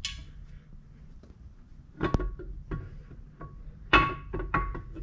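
Steel camshaft clinking and knocking against the cam bearings as it is slid by hand into an LS V8 engine block. A handful of sharp metallic knocks with a short ring, starting about two seconds in, the loudest about four seconds in.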